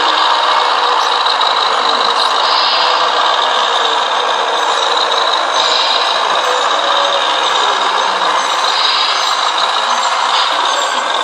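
Radio-controlled scale model Scania 140 truck manoeuvring: a steady, noisy whirr from its electric outrunner motor and gearbox, with a brief higher hiss every three seconds or so.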